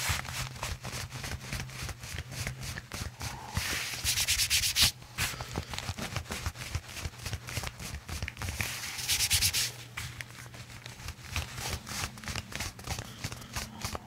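Hands rubbing briskly over a cotton shirt on a patient's back during soft-tissue work, a fast scratchy friction sound. It gets louder twice, in quick back-and-forth strokes about four seconds in and again about nine seconds in.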